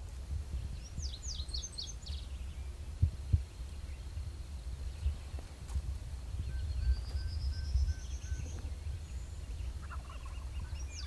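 Wild turkey gobbling in the distance among songbirds, one of them giving a rising high trill near the middle, with wind rumbling on the microphone and a couple of soft thumps from footsteps.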